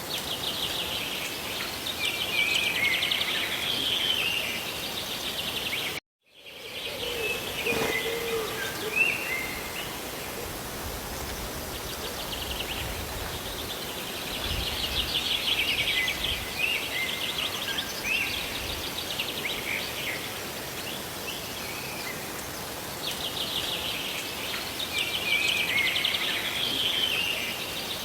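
Steady rushing noise of falling water, with small birds singing over it in repeated trilled and chirping phrases every few seconds. The sound cuts out completely for a moment about six seconds in.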